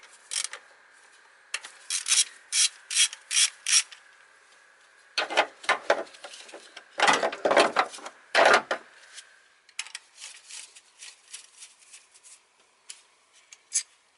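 Ratchet wrench with a 10 mm socket clicking as it undoes an ignition coil bolt: a run of sharp clicks a couple of times a second, then louder, longer rattling spells around the middle, then lighter scattered clicks.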